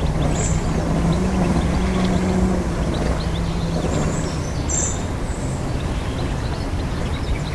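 A steady low motor hum, its pitch shifting slightly now and then, over outdoor background noise.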